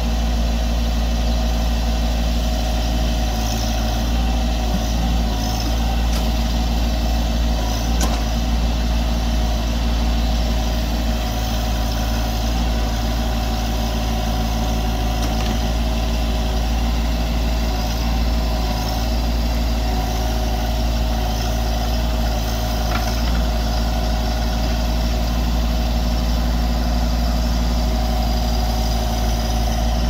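Branson compact tractor's diesel engine running at a steady speed, driving the hydraulics as the rear backhoe digs. A single light knock about eight seconds in.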